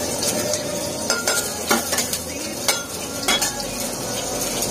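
Chopped onion, garlic and chilli sizzling steadily in hot oil in a pressure-cooker pot, with a few sharp clicks scattered through.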